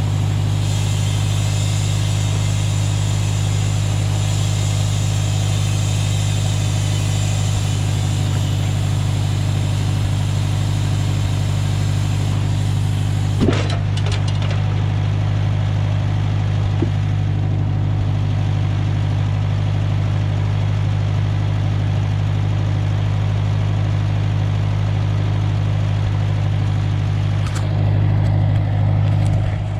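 Farm machine's engine idling steadily with a deep, even hum, with one brief knock about halfway through.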